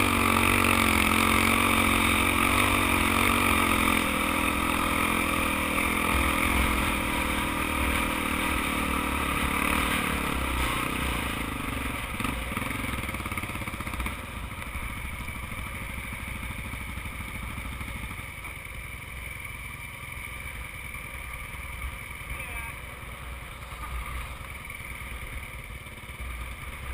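Dirt bike engine running at a steady pace over sand, then easing off about halfway through and dropping to a quieter low run as the bike slows.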